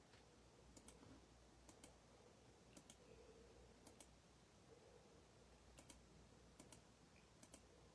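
Faint clicking at a computer: sharp double clicks, roughly one a second, over near-silent room tone.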